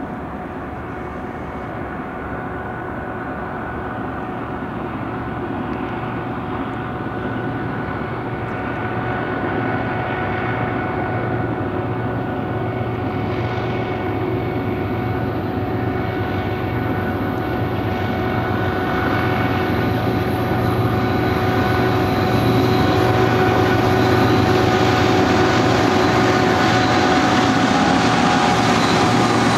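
GE ET44C4 diesel-electric locomotives running under load at the head of a freight train, their V12 GEVO engines droning with a steady whine. The sound grows steadily louder as they approach, levelling off near the end as they pass close by.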